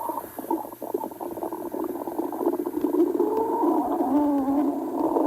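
A stomach growling and gurgling: a run of quick bubbling pops, then a longer wavering growl that bends up and down in pitch from about the middle of the stretch. This is the rumbling of an empty, hungry stomach.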